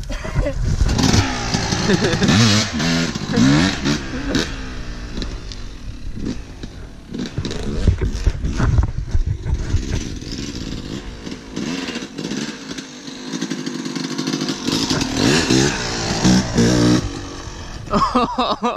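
Yamaha YZ250 two-stroke dirt bike engine revving up and down in repeated short blips at low speed, with knocks and clatter from the bike working over rough ground.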